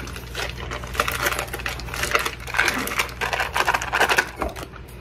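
Foil wrapper of a cream cheese block crinkling and rustling as it is peeled back and squeezed over a stainless steel bowl, in quick irregular crackly bursts.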